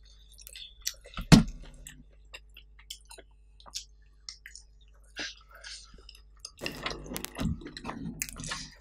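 Close-miked chewing and lip smacking of food eaten by hand, with a sharp knock about a second in and denser, wetter chewing in the last two seconds.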